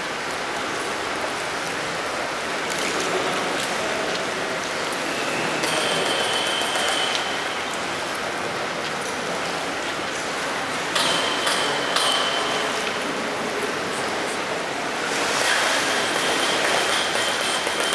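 Steady water noise of a swimming pool, with a few sharp metallic knocks on a steel pool ladder about two-thirds of the way through, each leaving a brief ring. The knocks are a coach's signal to an underwater freediver, used to cheer and to count off every 30 seconds of the dive.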